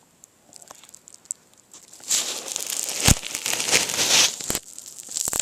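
Rustling, crinkling handling noise close to the microphone for about two seconds, with a few sharp knocks, the last near the end: the camera being handled while it is set up.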